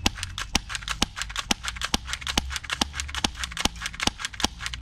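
Walther PPQ spring-powered airsoft pistol fired in quick succession: sharp clicking shots about two a second, with fainter clicks in between.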